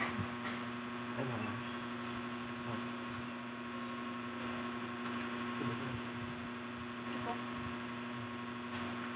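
Steady electrical hum of a few fixed tones, with faint scattered clicks and mouth sounds of people eating.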